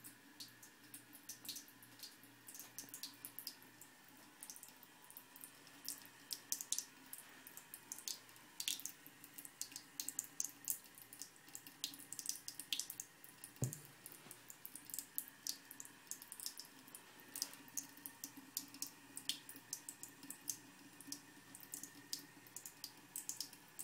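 Thin trickle of water running from a bathroom faucet into the sink while a Bengal cat laps from it, giving a faint steady hiss broken by irregular, quick splashy ticks, several a second. One soft thump about halfway through.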